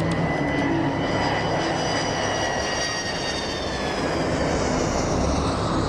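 Boeing 727 landing, its three rear-mounted Pratt & Whitney JT8D turbofan engines giving a steady jet rush with a high whine that slowly falls in pitch.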